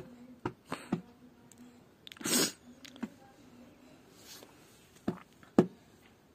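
Hands scraping and patting sand: scattered soft taps, a louder brushing scrape about two seconds in, and a sharp tap about a second before the end.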